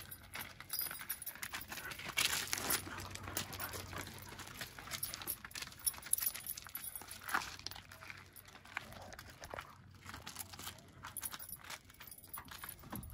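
Footsteps of a person and a booted dog scuffing and crunching over loose desert gravel, irregular and uneven, with light metallic jingling from the dog's leash and harness hardware.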